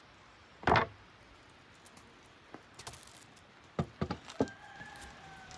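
Sharp knocks and clatters of handled objects: one loud knock about a second in, then a quick cluster of several smaller knocks near four seconds. A faint long call that slowly falls in pitch sounds near the end.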